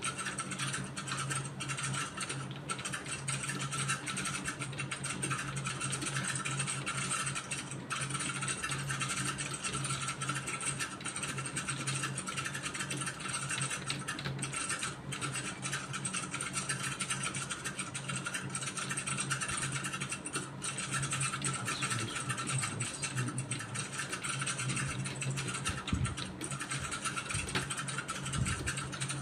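Computer keyboard being typed on continuously, a steady stream of key clicks over a constant low hum.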